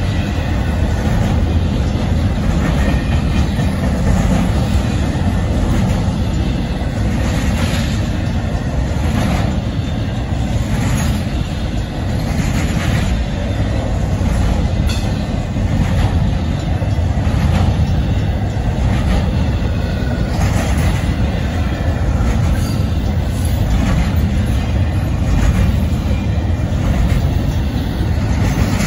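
Union Pacific intermodal freight train of double-stacked container cars rolling past close by: a steady loud rumble of wheels on rail, with repeated clacks as the wheels pass over rail joints.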